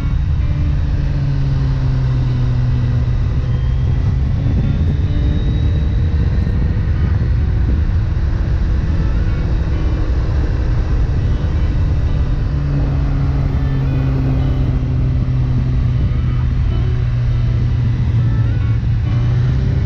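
Motorcycle engine running while riding at road speed, its pitch easing down and back up a little a few times as the throttle changes, under steady wind noise.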